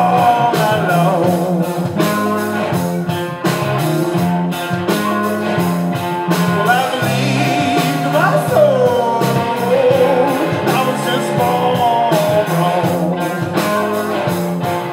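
Live blues-rock band playing an instrumental break on electric and acoustic guitars, bass and drums. A lead line bends and slides in pitch over a steady bass and drum groove.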